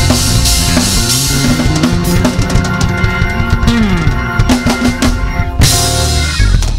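Gospel band playing live: organ, keyboards, electric bass and a drum kit with busy drum fills. A low note slides down in pitch about four seconds in, and a cymbal crash rings out near the end.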